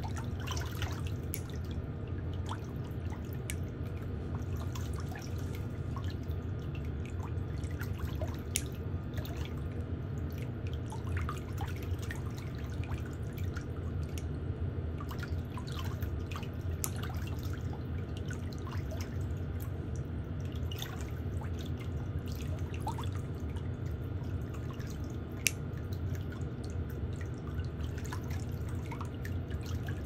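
Small, irregular clicks of steel toenail nippers snipping and picking at toenail edges over a steady low hum, with one sharper click near the end.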